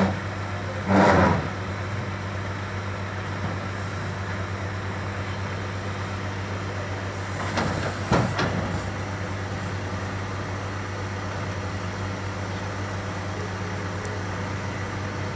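Heavy diesel engine of a John Deere 624K wheel loader running steadily as the loader works its way onto a flatbed truck. A loud short burst comes about a second in and a few sharp knocks or clanks about eight seconds in.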